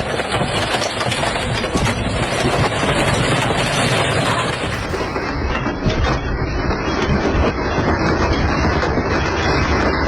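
Heavy machinery working at full power: a loud, dense, steady rumbling and rattling din.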